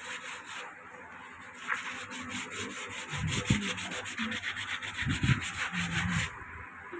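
Wet sanding by hand on a car's painted front bumper: a sanding pad rubbed back and forth in quick, evenly spaced strokes, stopping a little after six seconds in. A few dull thumps come in the middle.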